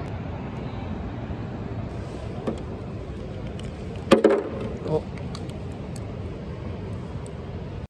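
Handling noise of a charger plug and cable being pulled from a cloth drawstring pouch onto a plastic seat: a click about two and a half seconds in, then a loud cluster of knocks and rattles around four seconds in and one more just before five seconds. A steady low background rumble runs underneath.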